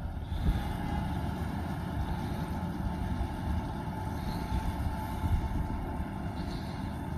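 Tractor and Kuhn FBP 3135 combination baler-wrapper running in the field: a steady low rumble with a faint steady whine over it.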